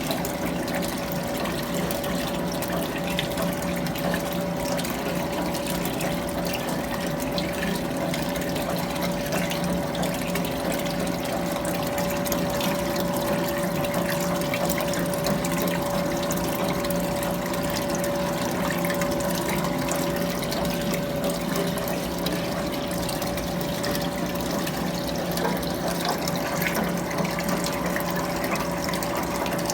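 Electrolux Prosdócimo washing machine running in its rinse cycle: a steady pump or motor hum with running water.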